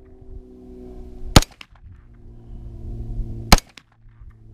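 Two sharp 9mm gunshots from a KE Arms AR9 AR-pattern pistol, about two seconds apart.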